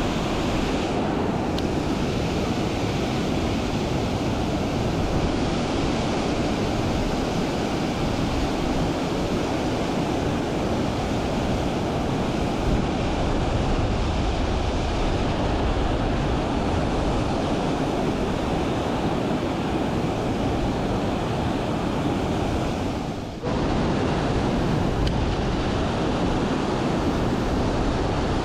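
Steady rushing noise of wind gusting on the microphone over high, fast-running river water, with a brief drop-out about 23 seconds in.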